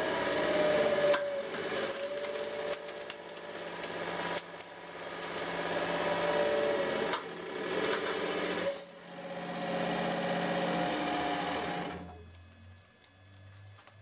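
Thick layered bulletproof glass panel crackling and crunching continuously as a hydraulic press ram crushes it. The crunching dies away about twelve seconds in.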